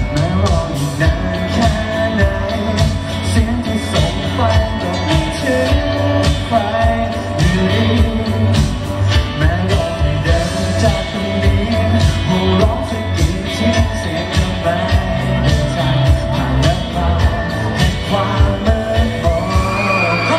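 Male singer singing a pop song live into a handheld microphone over amplified music with a steady beat.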